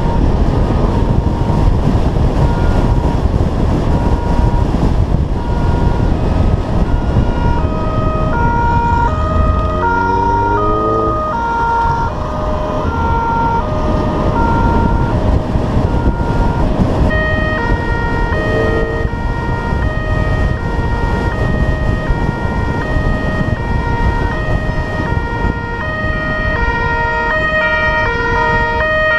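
Police two-tone siren alternating between a high and a low note about every half second, over the patrol car's engine and road noise, with a brief rising engine rev about a third of the way in. From a little past halfway a second siren sounds out of step with the first.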